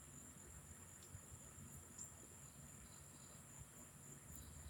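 Near silence: a faint, steady high-pitched tone in the background, with a few soft clicks.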